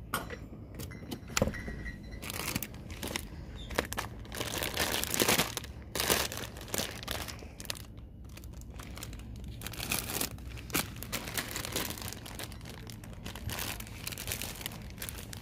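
Crinkly plastic wrapping of an instant-noodle multipack being handled, rustling in irregular bursts.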